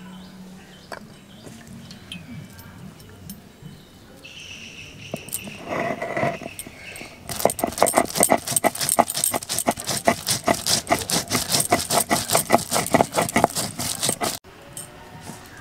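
Coriander seeds being crushed on a stone grinding slab by a rocking stone roller (sil-nora). Quiet scraping at first, then about seven seconds in a fast run of gritty crunching strokes, about five a second, which stops abruptly about a second before the end.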